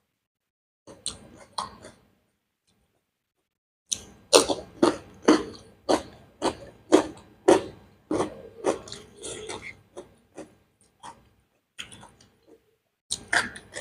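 Close-miked chewing of beef biryani: wet mouth smacks and clicks about twice a second, after a brief stretch of silence.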